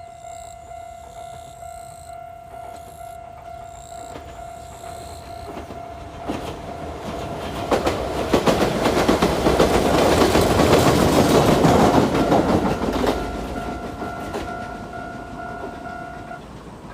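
Japanese railroad-crossing alarm ringing its steady kan-kan tone while a Yoro Railway train passes through the crossing, wheels clattering on the rails. The train builds up about six seconds in and is loudest from about eight to thirteen seconds in, then fades. The alarm stops near the end.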